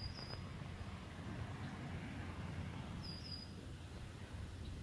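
A small bird chirping, short high calls twice a few seconds apart, over a steady low outdoor rumble.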